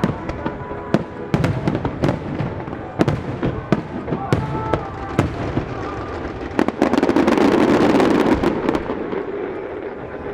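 Starmine fireworks bursting in quick succession over a music soundtrack, with sharp reports throughout. About two-thirds through, a dense barrage of bursts builds into the loudest stretch, then eases off near the end.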